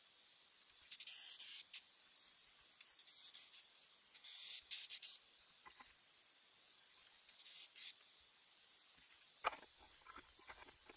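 Faint outdoor ambience of insects chirping steadily, with several short hissy bursts and a few sharp clicks near the end.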